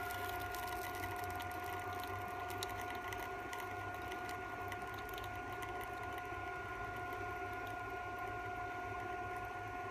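Mini induction heater running steadily, a constant high-pitched whine over a low hum, while it heats a metal shroud on a copper pipe joint. Faint irregular crackling ticks sound throughout.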